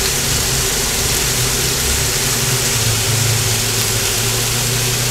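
Filet mignon steaks sizzling steadily on a cast iron grill plate on an induction cooktop, with the cooktop's steady low hum underneath.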